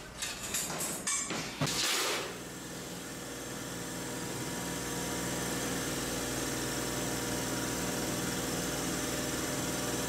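Steel strips clinking and knocking as they are laid on steel plate. About two seconds in, a guillotine plate shear's motor takes over, running with a steady hum.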